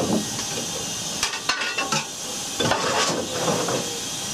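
Steady hiss of steam in the engine compartment of GWR Steam Railmotor No. 93, with a few sharp metallic clanks and scrapes of tools on the footplate by the firebox, about a second in and again near the middle.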